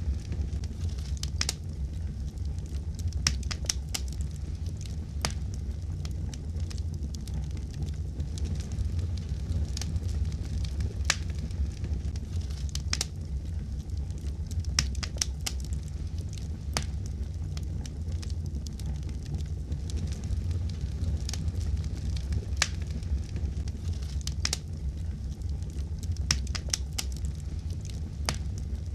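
Fireplace fire crackling: irregular sharp pops and snaps, several in quick clusters, over a steady low rumble of burning.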